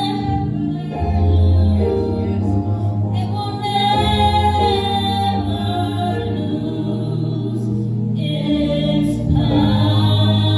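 A woman singing a slow gospel solo, holding long notes over sustained organ chords.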